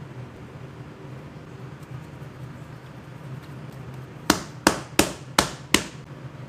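Five sharp knocks in quick succession, about three a second, over a steady low hum.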